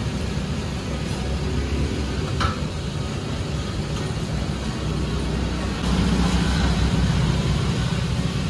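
Street traffic noise with a vehicle engine running close by, growing louder and fuller from about six seconds in. A single short click sounds about two and a half seconds in.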